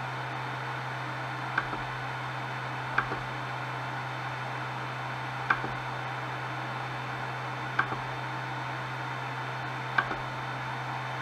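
Five clicks of the Ender 3 Pro's rotary control knob being pressed, each followed a moment later by a fainter click, a few seconds apart. Under them runs a steady hiss with a low hum from the powered-up printer.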